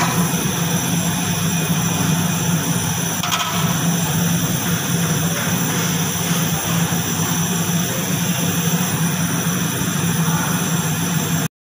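Steady, loud roar of commercial kitchen equipment with a low hum underneath, cutting out abruptly for a moment near the end.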